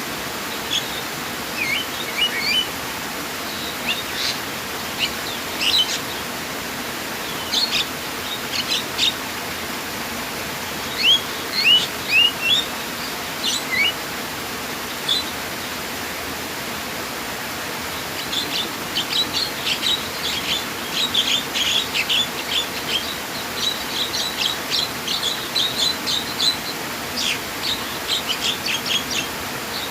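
Birds chirping in many short, quick calls over a steady rush of flowing water. The chirping is scattered at first and grows thick and busy over the second half.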